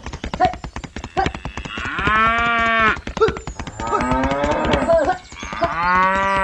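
Cattle mooing: two long, steady moos, one about two seconds in and one near the end, with rougher lowing between them, over a fast, steady clatter of clicks.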